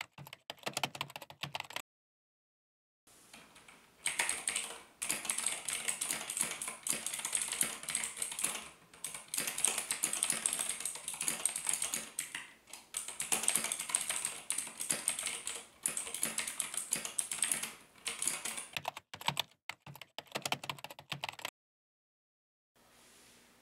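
Typing on a mechanical keyboard: fast, continuous key clacks that stop for about a second near the start and again near the end.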